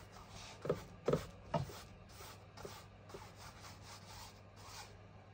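Paintbrush strokes brushing gesso onto a canvas: a scratchy rubbing repeated about two or three times a second, the strokes in the first two seconds the loudest.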